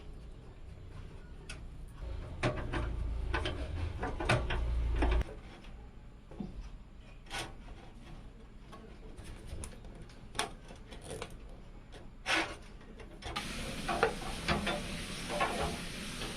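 PC parts being handled and fitted by hand: scattered light clicks and knocks with rubbing. A low rumble runs from about two to five seconds in, and a steady hiss sets in near the end.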